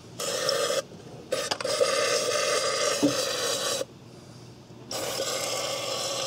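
Aerosol can of Kroil penetrating oil hissing as it sprays through a straw tube into the spark plug wells. It comes in three bursts with short pauses between: a brief one, a long one of about two and a half seconds, and a third that begins near the end. The oil is being sprayed to free spark plugs that may be rusted in their threads.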